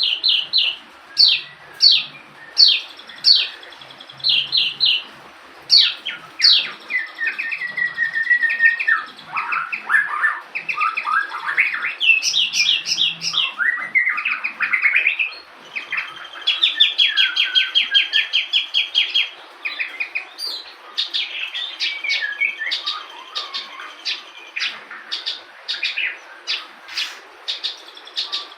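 Javan bush lark (branjangan) singing a long, varied song: strings of sharp repeated notes, slurred rising and falling phrases and fast trills, run together with hardly a pause. The song is full of the learned phrases ("materi") that keepers train these birds to sing.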